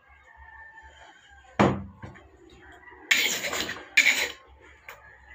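Hammer knocking on a piece of tire rubber set on a wooden block: a dull thud about one and a half seconds in, then two harsher, louder knocks around three and four seconds in.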